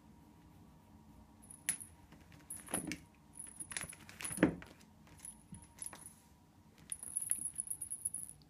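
Kitten at play with a toy, a small bell jingling in quick bright bursts, busiest near the end. Two dull thumps in the middle, the second the louder, as the kitten scrambles off a lap onto the floor.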